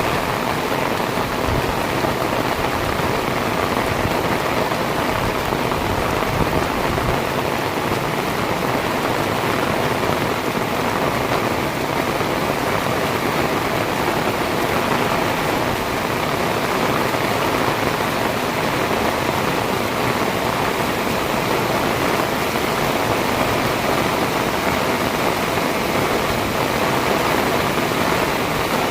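Heavy rain pouring steadily, a dense, even hiss of drops hitting the surfaces around.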